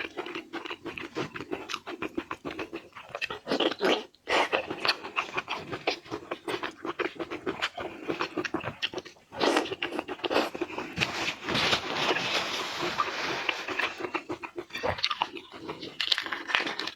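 Close-miked eating of seafood: steady crunching and chewing in dense, irregular crackles, with a short break about four seconds in.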